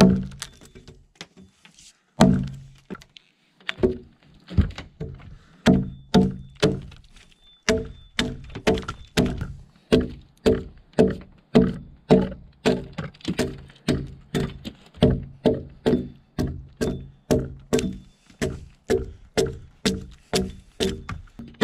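Axe blows chopping into a log to hollow out the groove along its top, each a sharp thud with a short ringing tail. A few blows come spaced apart at first, then a steady run of about two a second from about eight seconds in.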